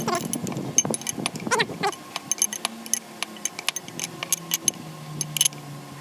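Metal tools and parts clinking and tapping in irregular strikes, with a few sharper knocks.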